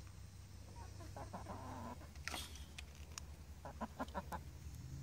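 Chickens clucking: a few soft calls early, then a quick run of four or five short clucks about four seconds in. A brief rustle comes a little after two seconds.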